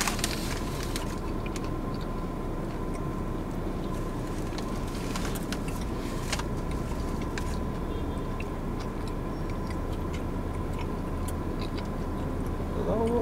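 Steady low hum of a car cabin with the engine idling, a thin steady tone above it, and a few faint clicks of chewing. A short hummed 'mm' comes right at the end.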